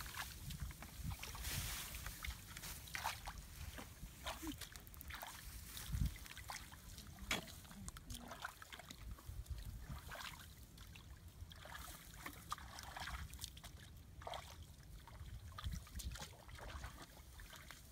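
Hands splashing and sloshing in a shallow muddy puddle in short, irregular bursts while groping for fish by hand.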